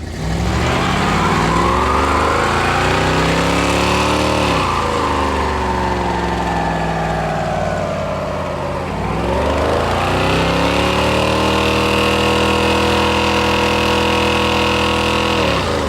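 Van engine revved hard: it climbs, eases off to a low point about halfway through, then climbs again and is held at high revs for several seconds before dropping off near the end.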